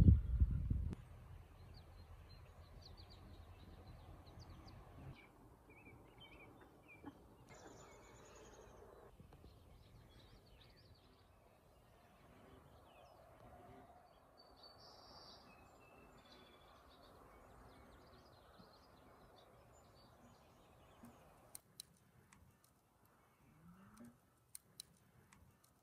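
A loud low rumble in the first second, then faint outdoor ambience with scattered bird chirps. Near the end, sharp crackles and pops from a wood fire burning in a metal fire pit.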